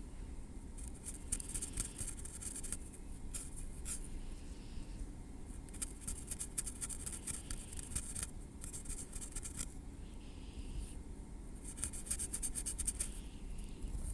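Metal tweezers working against hair and scalp: fine, crisp scratching and clicking in short clusters about a second long, with brief pauses between.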